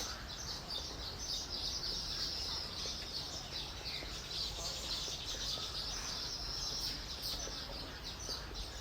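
Many weaver birds chirping and chattering together: a continuous mass of rapid, high, overlapping chirps.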